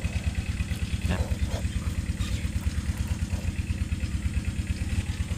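An engine running steadily at idle, with a fast, even low throb.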